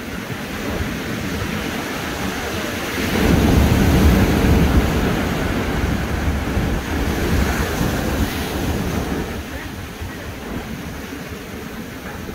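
Ocean surf breaking against rocks and washing up the sand in a continuous wash. It swells loudest about three seconds in and eases off toward the end.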